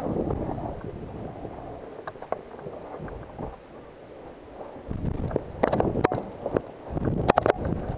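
Wind buffeting a body-worn camera's microphone, with rustling movement noise. From about five seconds in comes a run of sharp clicks and knocks, loudest near the end.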